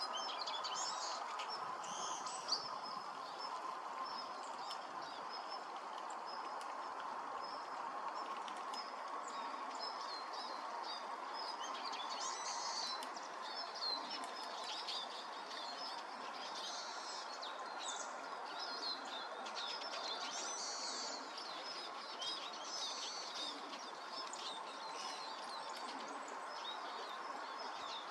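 A flock of Eurasian siskins calling, many short high twittering chirps overlapping in clusters that come and go. A steady rushing hiss runs underneath.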